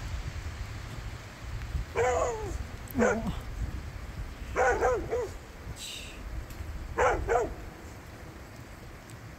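A dog barking: single barks about two and three seconds in, then two quick pairs of barks, over a steady low rumble.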